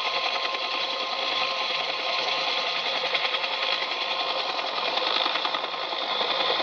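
Toy helicopter's small motor and plastic gears whirring steadily with a fast rattle as its rotor spins.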